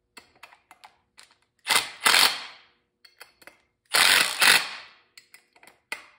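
Cordless drill driving 10-24 bolts into a Polar-style secondary clutch, twice giving a short ratcheting clatter of about a second, the sound that tells each bolt has bottomed out. Light clicks of handling come between the bursts.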